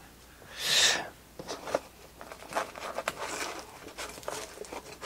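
Trading cards and a clear plastic card sleeve handled by hand: a short crinkling rustle about a second in, then light clicks and rustles as cards are set down and picked up.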